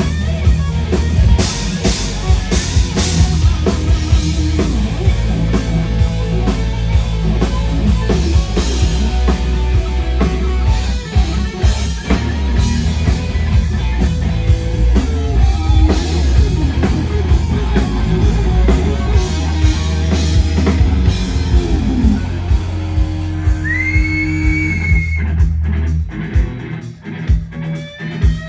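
Live heavy metal band playing: distorted electric guitars, bass and drum kit. Near the end a loud piercing whistle from the crowd rises and falls, then the band drops out to scattered drum hits.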